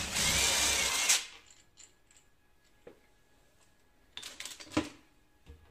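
Cordless brushless drill-driver running as it backs out a window handle's fixing screw, stopping about a second in. A few seconds later comes a short cluster of light metallic clinks and rattles.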